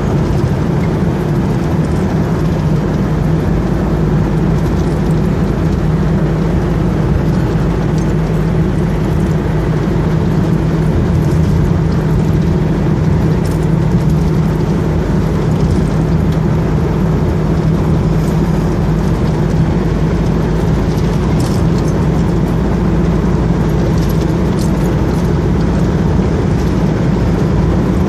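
Car driving steadily along a road, heard from inside the cabin: a steady engine hum and tyre and road noise.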